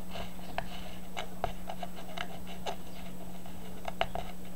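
Scattered light clicks and small scrapes from a homemade magnet wheel and its loose magnet being handled and moved, at an irregular pace, over a steady low hum.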